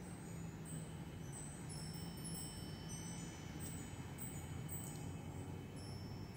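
Faint wind chimes ringing, several high notes starting at different moments and ringing on over one another, over a low steady hum.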